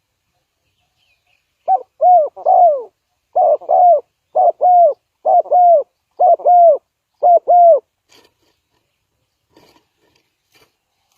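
Spotted dove cooing: a run of low, arched coos, mostly in pairs about a second apart, lasting some six seconds, followed by a few faint ticks.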